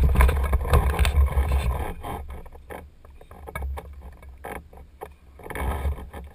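Wind buffeting the microphone of a camera mounted on a hang glider during launch and climb-out, as a low rushing rumble. It is loud for the first couple of seconds, drops to a choppy flutter in the middle, and builds again near the end.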